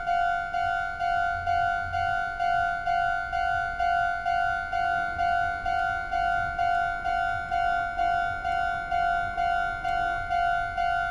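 Japanese railroad crossing warning bell ringing its 'kan-kan' signal: one electronic bell tone struck over and over, a little over twice a second, each stroke dying away. It is the warning that a train is coming.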